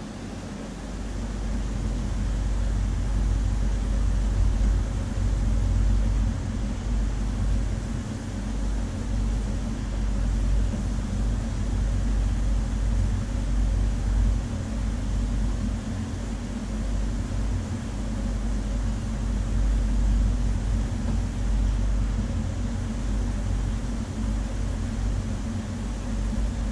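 Steady low machine hum and rumble, the kind made by a large aquarium's water pumps and circulation. The deep rumble swells and eases slightly, while the hum stays constant.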